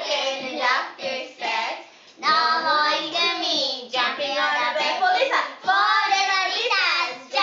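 Young children singing together in high voices, phrase after phrase, with a short break about two seconds in.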